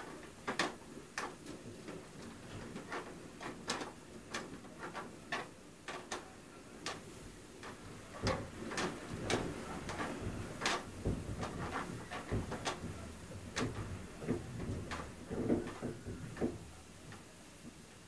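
Window shutters banging and rattling in irregular knocks, blown by blizzard wind, heard from inside a house over a low, steady rush of wind. The knocks come thickest and loudest in the middle and ease off near the end.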